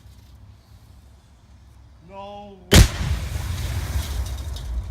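A half-stick explosive charge going off inside a refrigerator: one sharp, loud bang about three seconds in, with a rumble of noise trailing on for a couple of seconds. A short call from a voice comes just before the blast.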